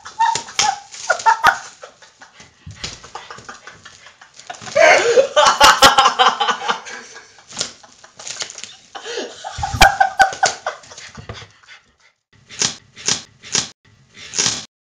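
A small dog scrambling and pushing against plastic wrap stretched across carpeted stairs: the wrap crackles and snaps, and the dog yelps and whines at times. A run of four short, sharp sounds comes near the end.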